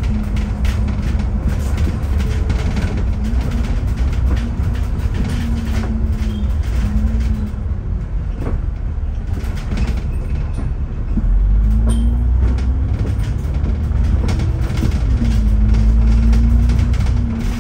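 Double-decker bus heard from inside on the upper deck: a steady low engine and road rumble, with an engine note that rises and falls several times as the bus changes speed. The rumble grows heavier in the second half.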